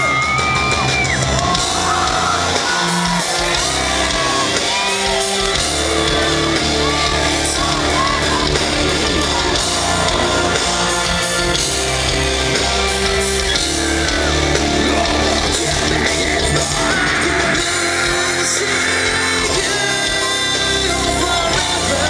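Live rock band playing with sung vocals over amplified guitars and bass, loud and steady, heard from among the audience in a large hall.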